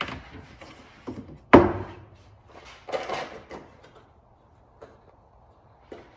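Prop rod being fitted into its clip on the underside of a folded-up BAKFlip MX4 hard tonneau cover: a few sharp clicks and knocks of plastic and metal. The loudest knock comes about one and a half seconds in, with a short clatter around three seconds.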